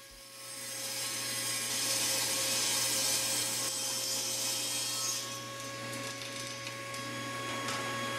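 Table saw ripping red oak to width: a steady motor whine under the blade's cutting noise, which rises about half a second in, is loudest for the next four or five seconds, then eases off.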